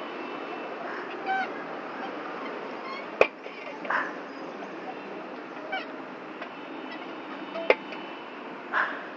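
Yellow metal playground seesaw ride squeaking in short honk-like squeaks as it rocks up and down, with two sharp knocks about four and a half seconds apart.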